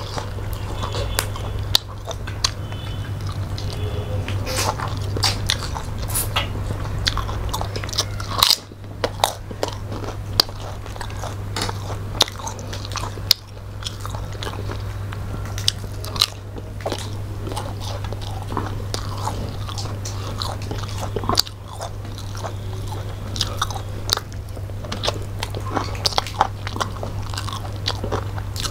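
Two people eating seafood with their hands: close-up chewing and crunching, with many short sharp crunches and clicks, over a steady low hum.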